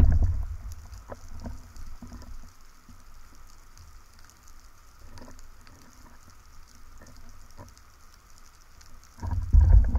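Underwater sound picked up by a camera in its housing: low rumbling water movement at the start and again near the end, with a quieter stretch between broken by a few faint scattered clicks.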